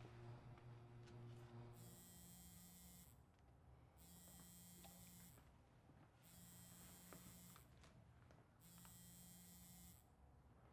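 A phone buzzing on vibrate in four bursts of about a second each, spaced evenly: an incoming call.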